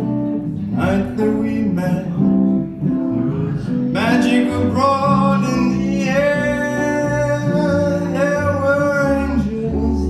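Small jazz combo playing a ballad live: upright bass and two hollow-body guitars, with a male voice singing long held notes from about four seconds in.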